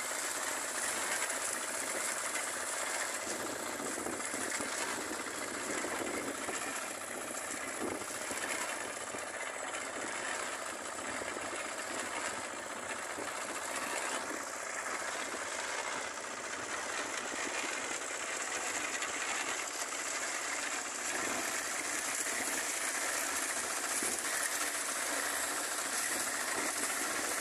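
Portable concrete mixer running steadily, its small engine driving the drum as it turns a batch of cement and gravel.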